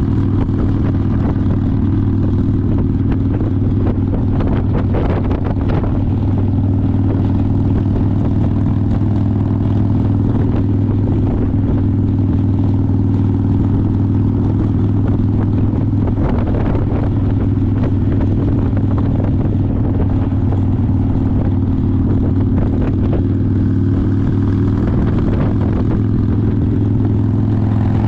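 Harley-Davidson V-twin motorcycle engine running steadily at cruising speed, with road and wind noise.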